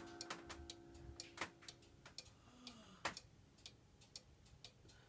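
Black Forest cuckoo clock's pendulum movement ticking steadily, about two ticks a second. A faint ringing tone fades out in the first second and a half.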